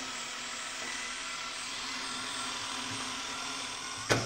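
Electric drill running steadily, turning the crank of a Vevor SD-002 wire stripping machine as a cable is fed through its blade, with a faint high whine. Near the end comes a sharp clack and the running stops.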